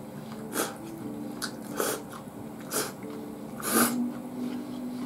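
Udon noodles slurped from chopsticks in about five short, sharp slurps, the loudest near the end, over steady held notes of soft background music.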